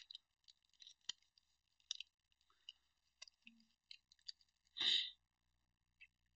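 Yu-Gi-Oh booster pack wrappers and cards being handled: faint, scattered crinkles and clicks, with one louder short rasp just before five seconds in.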